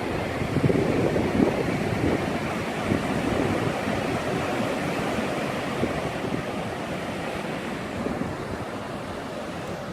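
Ocean surf washing in a steady rush, with wind buffeting the microphone in gusts early on that ease off over the second half.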